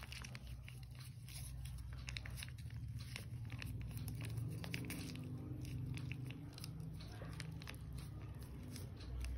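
A cat chewing and licking wet cat food, a steady run of small wet clicks and smacks, with the foil food pouch crinkling as it is squeezed out by hand.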